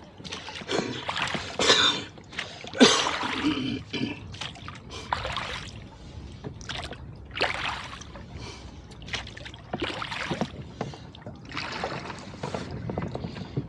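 Rowboat under oars: repeated splashy swishes of the oar blades working the water, uneven strokes a second or two apart.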